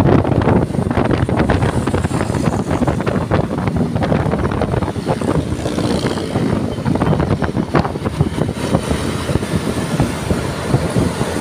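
Vehicle noise: a steady loud rumble with dense, irregular clatter.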